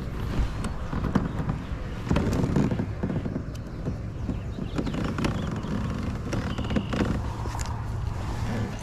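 Scattered clicks and knocks from a baitcasting rod and reel being worked from a plastic kayak while a hooked bass is reeled in, over a low steady rumble.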